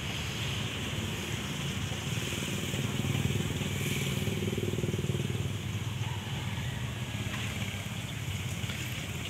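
Mitsubishi Canter's 4M40 2.8-litre four-cylinder diesel engine idling with a steady low rumble that swells a little in the middle.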